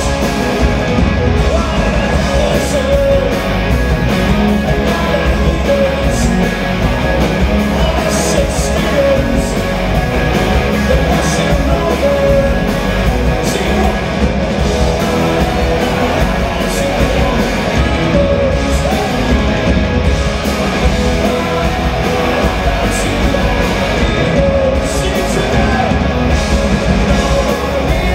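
Live rock band playing loudly: electric guitars, bass guitar and drums, with a man singing lead.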